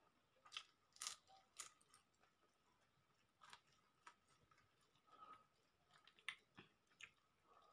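Quiet eating sounds of rice and chicken curry eaten by hand: soft chewing and a scattering of short, sharp clicks.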